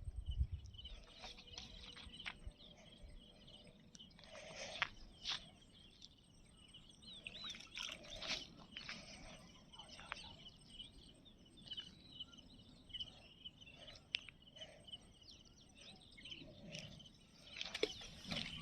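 Birds chirping and calling, many short calls scattered throughout, over faint background noise.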